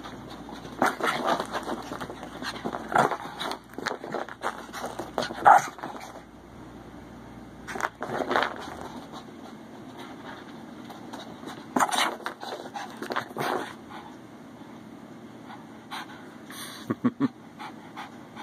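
Pekingese puppies playing together, making scattered bursts of dog noises a second or so long, with quieter stretches between and a few short clicks near the end.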